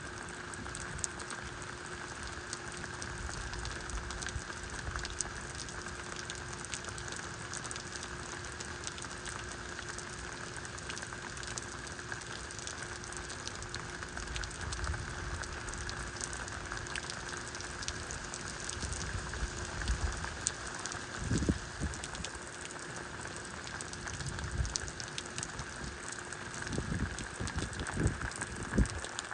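Rain falling steadily, with many individual drops ticking close by. A faint steady hum sits underneath, and a few short low rumbles come about three-quarters of the way in and again near the end.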